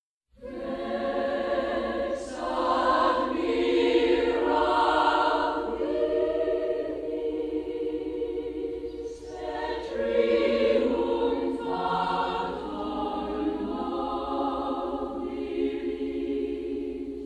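A choir singing, the music coming in just after a brief silence at the start.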